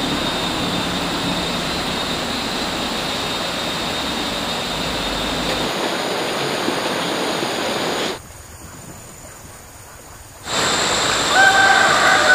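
Steady rushing outdoor ambience with a faint, even high-pitched whine. It drops away sharply for about two seconds after eight seconds, then returns louder, with a drawn-out two-pitched tonal call that falls at its end.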